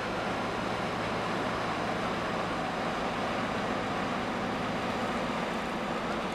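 Tanker ship's engine and onboard machinery running as the ship moves past close by: a steady drone with several low humming tones over a broad even rush.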